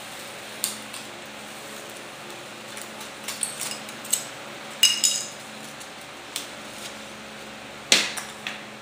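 Scattered light knocks and clicks from handling a cutting template and cut foam discs on a wooden work stand, the sharpest about five seconds in and near the end, over a steady low hum.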